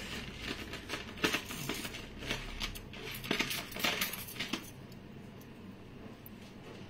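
Metal jewellery clinking and jingling as a pendant with a chain and dangling drop hangings is handled: many quick sharp clinks for about four and a half seconds, then quieter.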